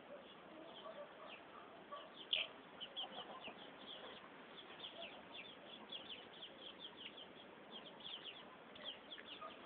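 A group of three-week-old chicks peeping continually: many short, high, falling cheeps overlapping, with one louder peep about two seconds in.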